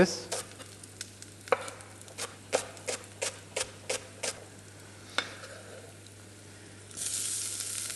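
A chef's knife slicing a leek into rounds on a wooden cutting board: about a dozen sharp chops at roughly two a second, then they stop. About seven seconds in, garlic in hot olive oil starts sizzling in a pan.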